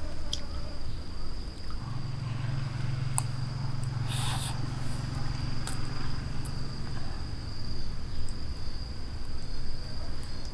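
Insects, crickets or cicadas, trilling steadily on one high note, with a few short clicks. A low hum comes in for a few seconds in the middle.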